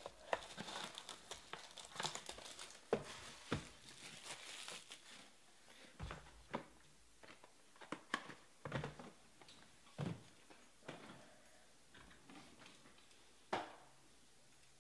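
Clear plastic shrink wrap crinkling and crumpling as it is handled off a trading-card box, followed by scattered light taps and clicks, the last of them louder, near the end.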